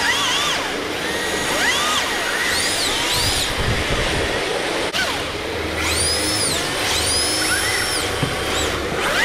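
Brushless electric motors of RC drift cars whining, their pitch rising and falling again and again with short throttle blips, with one longer held rev past the middle, over a steady hiss.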